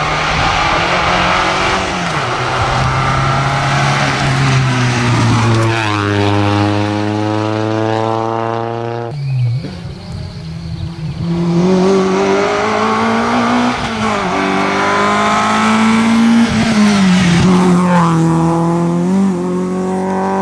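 Rally car engines at full throttle, revving up through the gears, the pitch dropping at each gear change as the cars come down the stage. The sound breaks off sharply about nine seconds in and another car's engine takes over.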